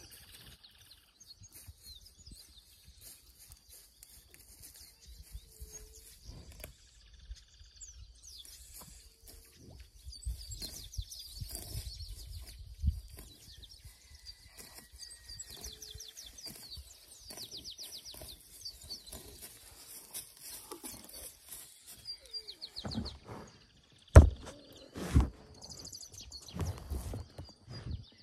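Birds chirping, with several rapid trills of short, evenly spaced notes, over quiet open-air background. Near the end come two loud knocks about a second apart.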